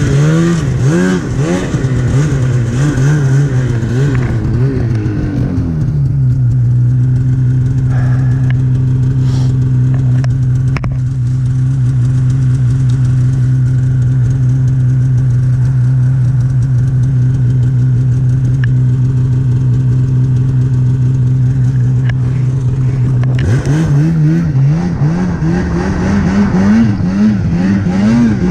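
Snowmobile engine revving up and down unevenly, then holding one steady pitch for about seventeen seconds, then revving up and down again near the end.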